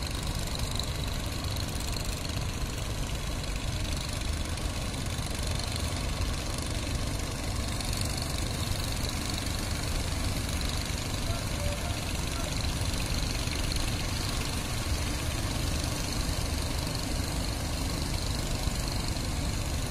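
Steady rumble of surf breaking on the beach, mixed with the engines of fishing boats running in the channel.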